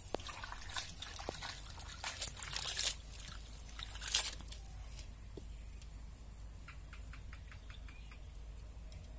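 Water sloshing and splashing in a metal wok as hands wash cut raw jackfruit pieces, with water trickling from a hand pump. The splashes are loudest in the first half and quieter after that.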